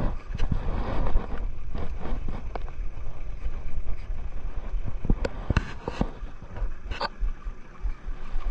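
Steady wind and water noise in a small wooden fishing boat, with a few sharp knocks and clicks between about five and seven seconds in.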